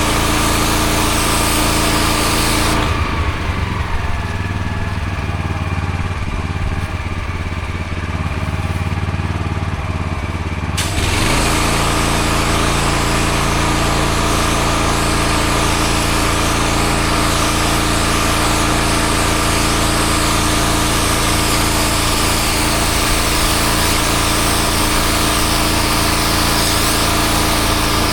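Engine-driven pressure washer running steadily, its water jet hissing as it blasts the block paving. The hiss cuts out about three seconds in, leaving the engine running on its own, and comes back some eight seconds later.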